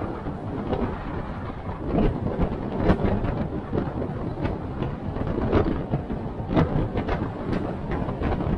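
4x4 driving over a rough off-road track: a steady rumble of engine and tyres with irregular knocks and bumps, the loudest about three seconds in.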